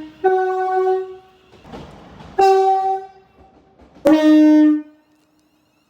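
Train horn sounding in separate blasts on two notes: a lower note dies away at the start, then a higher blast of about a second, another higher blast of about a second and a half, and a short, louder blast on the lower note near the end.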